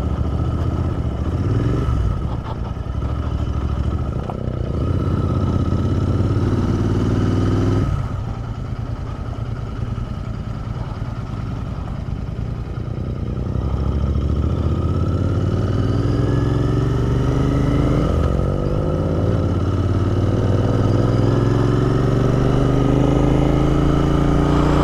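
Royal Enfield Interceptor 650's parallel-twin engine under way, revs climbing through the gears: a rising pull that drops off sharply about eight seconds in, then long climbs in pitch again through the second half.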